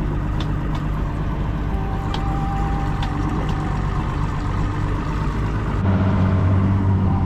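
Evinrude 200 outboard motor running at low speed with a steady hum, then growing louder and deeper about six seconds in as the throttle is opened.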